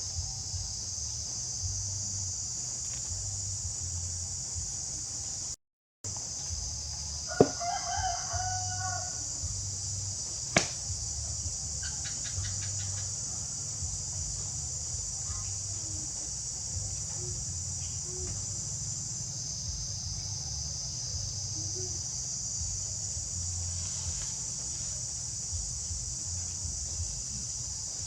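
Steady high-pitched insect drone, with one drawn-out bird call lasting about a second and a half, starting about seven seconds in. Two sharp clicks are heard, one at the start of the call and one about three seconds later.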